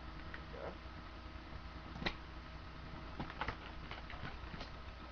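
A handful of faint, scattered clicks and taps from handling a taped-up cardboard shipping box of DVDs while working it open, over a low steady hum.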